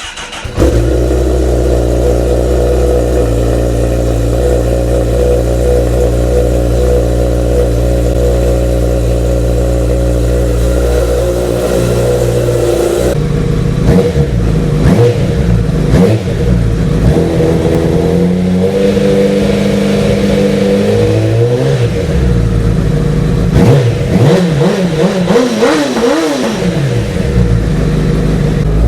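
Honda CBR1000RR inline-four engine catching about half a second in, idling steadily for about twelve seconds, then blipped repeatedly, its pitch rising and falling with each rev. First run with a new cam chain tensioner fitted, checking whether the buzzing at 3000 rpm is gone.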